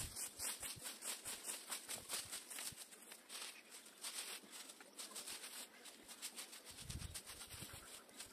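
Dry fallen leaves rustling and crackling as they are raked and gathered up by hand, in a quick run of small crackles.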